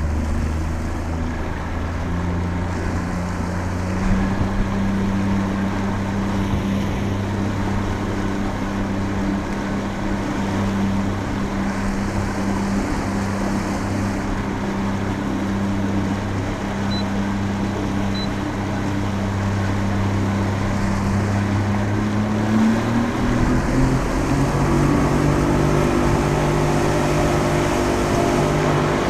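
Outboard motor of a small aluminium fishing boat running steadily at cruising speed, with wind and water rushing past the hull. The engine note rises about three quarters of the way through.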